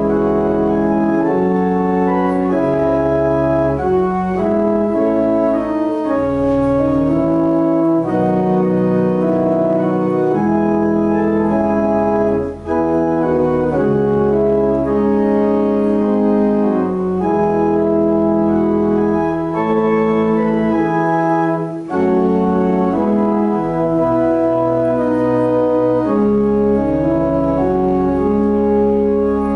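Church organ playing sustained chords that change every second or two, with short breaks about 12 and 22 seconds in.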